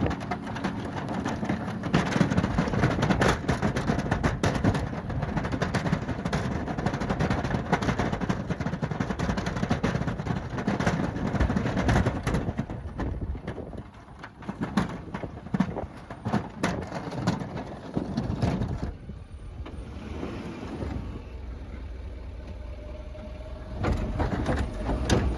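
A vehicle or machine engine running under dense rumbling noise, which drops and becomes patchier about halfway through.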